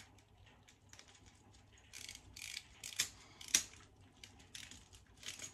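Hand screwdriver turning a terminal screw down on a Hive thermostat receiver's plastic wiring backplate, clamping the neutral wire: faint, irregular clicks and scratches of the blade in the screw head, with a few sharper clicks about two thirds of the way through.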